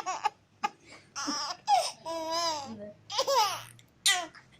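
A baby laughing and squealing in short separate bursts with pauses between them, including a long wavering squeal about two seconds in.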